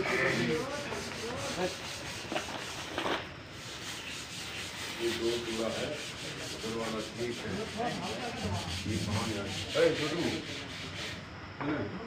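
Plastic wrapping and a cardboard box rustling and rubbing as a door closer and its parts are unpacked by hand, in many small scrapes and crinkles.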